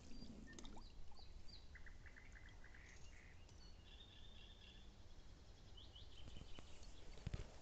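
Small songbirds singing faintly: scattered short chirps and quick trills, over a low rumble.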